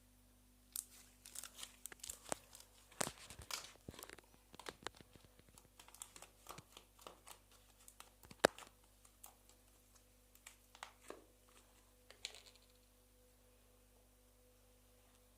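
Slime being handled and stretched, giving a run of irregular crackles, pops and small tearing sounds that thin out and stop about twelve seconds in.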